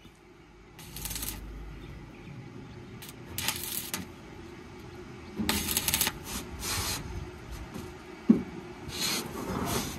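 Stick (arc) welder crackling in four short bursts of under a second each as spot welds are struck on sheet steel, with a single knock about eight seconds in.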